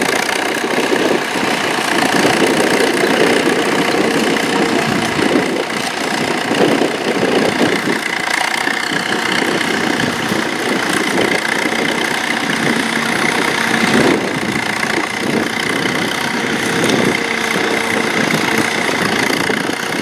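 1939 Allis-Chalmers Model U tractor's four-cylinder engine running steadily under load as it pulls a trailed plough.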